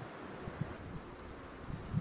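Outdoor wind noise rumbling on the microphone, with a few soft low thumps.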